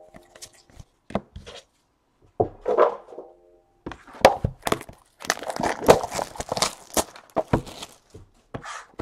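Trading-card packaging being handled: a few soft knocks and taps, then from about four seconds in a run of crinkling and tearing of wrapper plastic.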